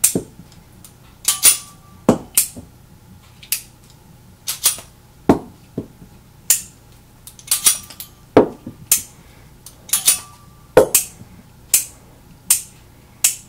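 A .45 Colt single action revolver being unloaded with the loading gate open: sharp metallic clicks as the cylinder is turned a chamber at a time and the ejector rod pushes out the snap caps. There are about twenty clicks, half a second to a second apart, some with a short metallic ring.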